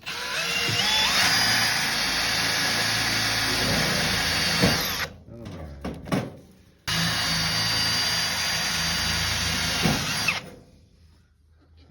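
Electric drill running in two long runs, about five seconds and then three and a half, its motor whine rising as it spins up at the start. It is drilling holes to rivet down a fridge shelf.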